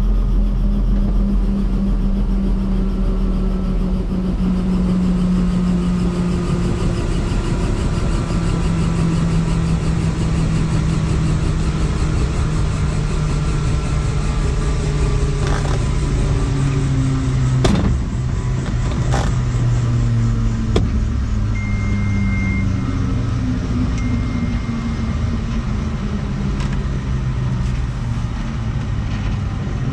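Helicopter engine and rotor running down, the pitch of the whine falling slowly and steadily, typical of a shutdown after landing. A few sharp clicks come about two-thirds of the way through, and a steady high beep sounds twice near the end.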